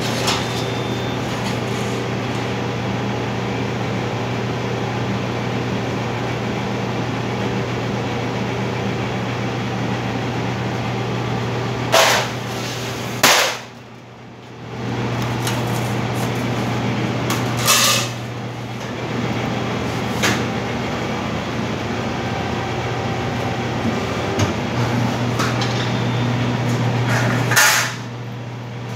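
Hydraulic press brake running with a steady hum while sheet steel is bent and handled, with a few sharp knocks of the steel against the machine and tooling. About halfway through the hum drops away for a second or so, then returns.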